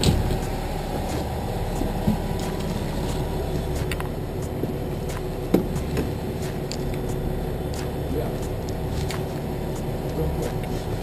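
Steady low drone of the boat's engine running at idle, with a few sharp knocks, the loudest near the start and about five and a half seconds in.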